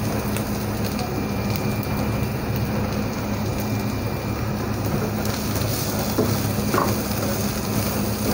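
Mashed boiled potato sizzling in mustard oil in a hot non-stick pan while a spatula stirs and presses it, with a steady low hum underneath.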